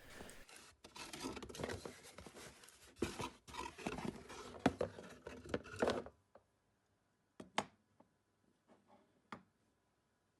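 Handling noise: rubbing, scraping and small knocks of objects being moved about by hand. It stops about six seconds in, followed by a few isolated sharp clicks.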